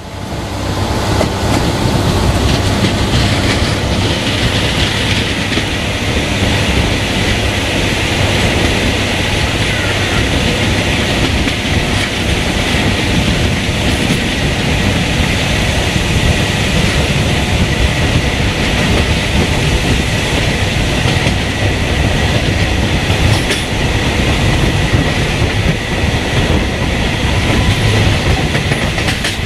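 A DH2 diesel-hydraulic railcar's wheels rolling and clattering along jointed track at speed, heard from an open window as a loud, steady rush with a thin high whine running through it. The sound swells in at the very start.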